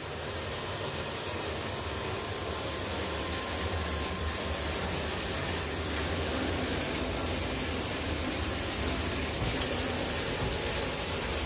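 Bore-well water, pumped up by an electric pump, rushing through an air-injection (aeration) valve into a storage tank to aerate iron-contaminated water: a steady rush of water with a low hum beneath, growing slowly louder.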